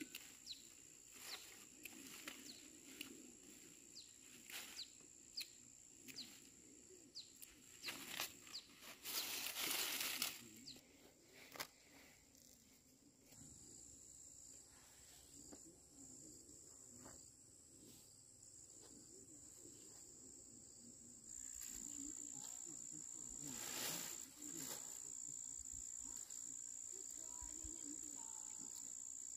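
Insects keep up a steady high-pitched chirring over the field, louder in the second half. Over it come soft snaps and rustles of peanut plants being handled and pods pulled off, thickest in the first twelve seconds, with a louder rustle about nine to ten seconds in and another near the middle of the second half.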